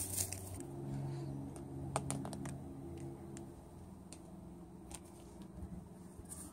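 Light plastic clicks and taps of toy animal figurines being set down and moved on rough concrete. The clicks are scattered, with a quick cluster about two seconds in.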